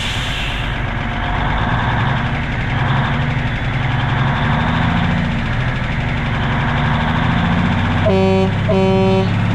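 A 1988 Kenworth K100E's Cummins Big Cam IV 400 inline-six diesel running steadily. Near the end a horn gives two short blasts.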